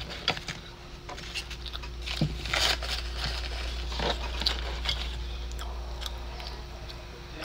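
Metal chopsticks clicking and scraping against a glass food container, mixed with chewing, over a steady low hum.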